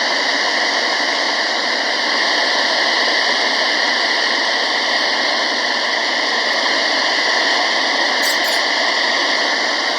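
Portable shortwave radio playing steady static hiss through its speaker, tuned where no station is coming through, with a brief faint crackle about eight seconds in.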